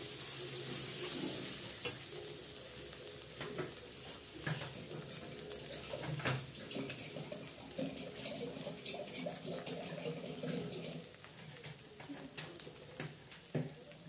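Spice masala of cumin, ginger and green chilli paste sizzling in oil in a metal kadai, with a metal spatula scraping and stirring the pan in the first seconds. The sizzle runs on with scattered pops and slowly grows quieter.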